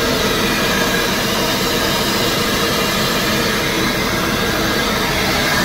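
Truck's turbocharged diesel engine running steadily, heard close up with a loud, even hissing whoosh around the turbocharger. The driver blames the noise on a spring next to the turbo that has come loose.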